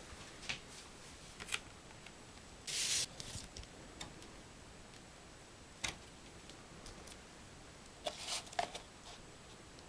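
Hands handling a vinyl record's paper and card packaging: scattered light taps and clicks, a short rustle about three seconds in, and a cluster of small knocks near the end.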